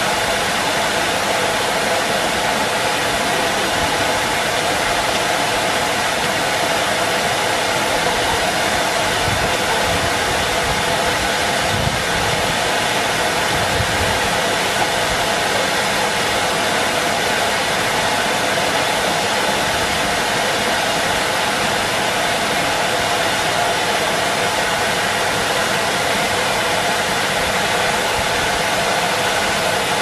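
Henry canister vacuum cleaner running with a steady, even whoosh of its suction motor.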